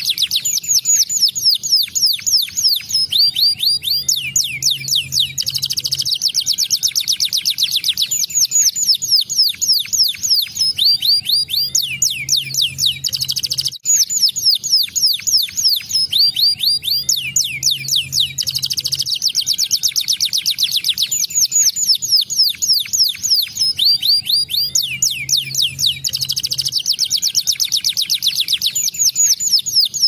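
Domestic canary singing a fast, continuous song of rapidly repeated trilled notes, breaking off briefly once midway.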